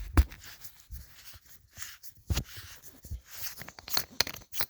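Handling noise from a large metal flashlight being opened to get at its battery holder: a run of sharp clicks and knocks with short rustles between them, the loudest knock just after the start.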